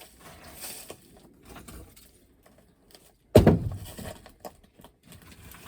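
Coal being dug out from under snow: scraping and small knocks, with one loud knock about three and a half seconds in.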